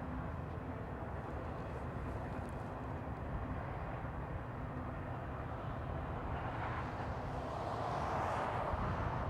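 Diesel freight train running, a steady low rumble that grows louder near the end as a rushing noise builds.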